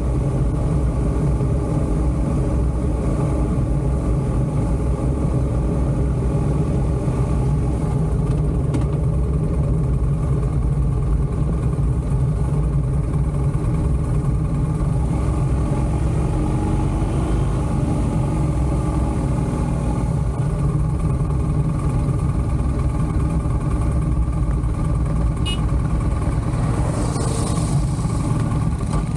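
BMW motorcycle engine running at a steady cruising speed, its note holding even pitch throughout, heard from a camera mounted on the bike while riding.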